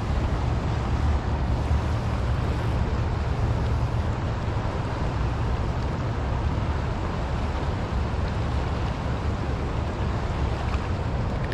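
Steady wind buffeting the camera microphone, a low rumble over the rush of the river current.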